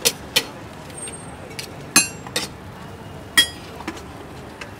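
Metal utensils clinking: a few sharp, ringing clinks, two close together at the start, two more about two seconds in and another about three and a half seconds in, over a steady background hum.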